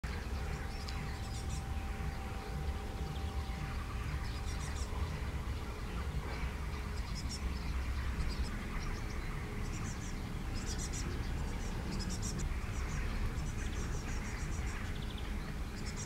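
Great tit fledgling begging for food: short runs of rapid, very high-pitched calls, repeated every second or so, over a steady low rumble.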